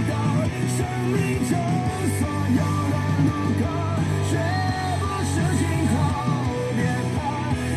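Background song: a voice singing a melody over guitar and a steady bass.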